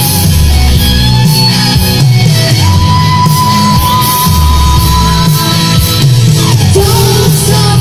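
Rock music with a boy singing into a microphone over a PA system. A long high note is held through the middle and slides down near the end.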